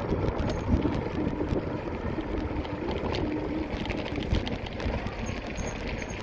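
Steady rumble and rattling of wheels rolling over a cobblestone street, with wind buffeting the microphone.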